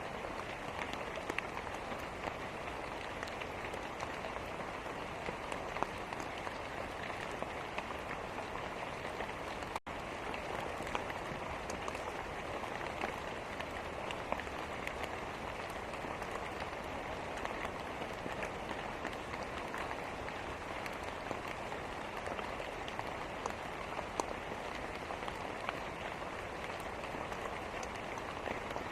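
Steady rain falling, an even hiss with scattered sharp ticks, briefly cutting out for an instant about ten seconds in.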